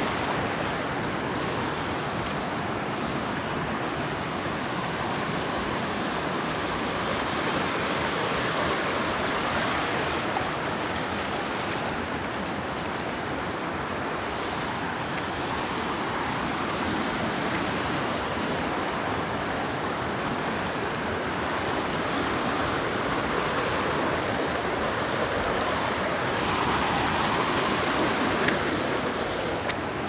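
Water rushing steadily down a shallow cascade over rock slabs, an even, continuous rush with no breaks.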